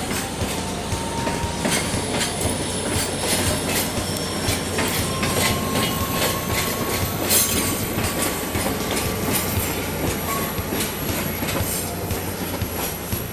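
A JNR DE11 diesel-hydraulic shunting locomotive running past with container wagons: a steady low engine rumble, thin high-pitched wheel squeal, and irregular clicks of wheels over the rail joints.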